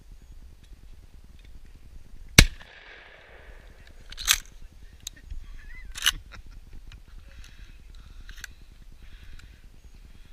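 A single shotgun blast about two seconds in, echoing briefly, followed by two weaker sharp cracks about two and four seconds later.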